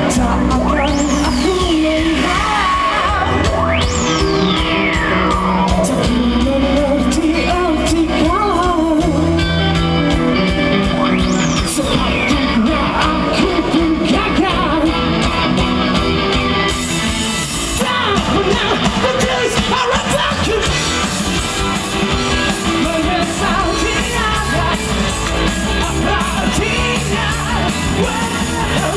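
A rock band playing a song with a singer's voice over the band, at a steady loud level.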